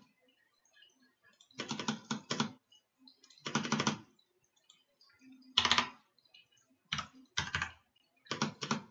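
Computer keyboard typing in short bursts of several quick keystrokes, about five bursts with pauses between.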